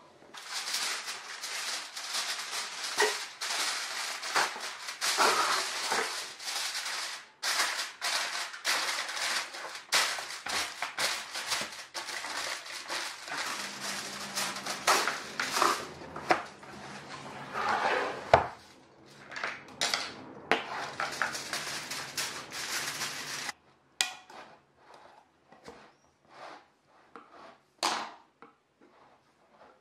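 Aluminium foil being pulled from its box and crinkled around paint roller trays, a dense, continuous crackling rustle. It stops abruptly near the end, giving way to a few scattered clicks and one sharp snap as a paint tin's lid is worked open.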